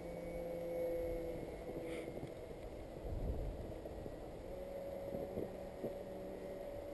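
Twin brushless electric motors with 6x4 propellers droning on a radio-controlled plane flying overhead. The hum fades about two seconds in and returns a little higher-pitched from about four and a half seconds, as the throttle is eased off and opened again. Wind rumbles on the microphone.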